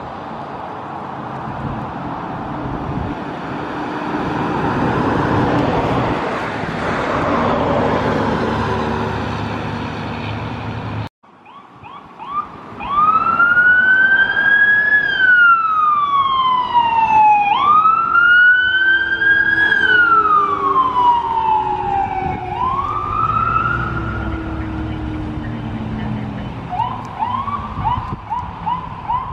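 Road vehicles passing, engine and tyre noise swelling and fading. Then, after an abrupt cut about eleven seconds in, a fire-and-rescue ambulance's electronic siren on a slow wail, rising and falling twice, then switching to a fast yelp near the end.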